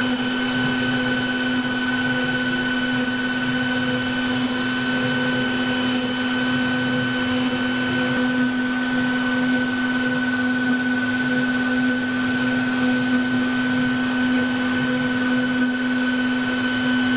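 A CNC router spindle is running steadily with a high, even whine while a fine engraving bit carves a hardwood board. A few faint ticks sound over the machine noise.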